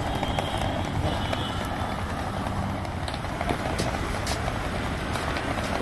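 Steady street traffic noise: motor vehicles running, with a low hum and a few short clicks.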